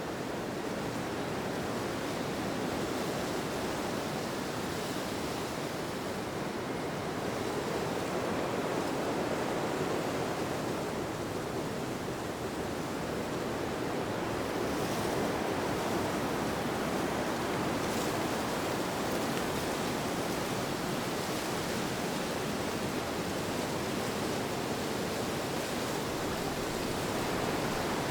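Steady wind, an even rushing noise that slowly swells and eases.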